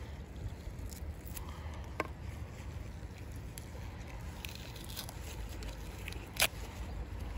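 Quiet food-prep handling sounds: latex-gloved hands and a knife working at a wooden cutting board while a sausage's casing is peeled, with a few sharp taps, the loudest about six seconds in, over a steady low rumble.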